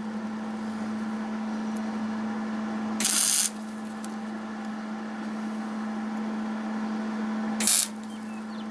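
Welder laying two short tack welds, each a brief burst of sizzling arc noise: the first about three seconds in and lasting half a second, the second shorter near the end. A steady electrical hum runs underneath.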